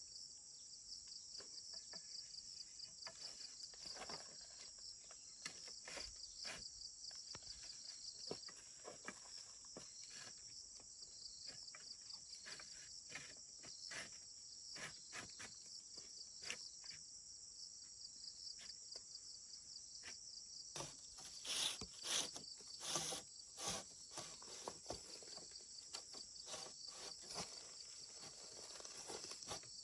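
Steady high-pitched insect chorus, crickets trilling with a fast pulsing texture, over scattered light clicks and taps. The taps bunch into a louder flurry of knocks about two-thirds of the way through.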